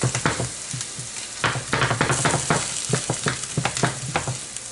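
Chopped spinach sautéing in a pan: a steady sizzle, with frequent scrapes and taps of a utensil against the pan as it is stirred.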